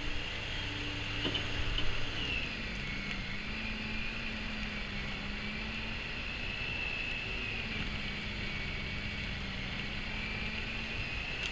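Snow Joe snow blower running steadily while clearing snow: a high motor whine with a lower hum beneath it, wavering slightly in pitch.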